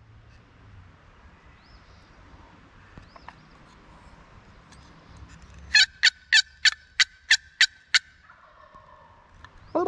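Wild turkeys gobbling. About six seconds in comes a loud series of about eight sharp, evenly spaced calls lasting about two seconds.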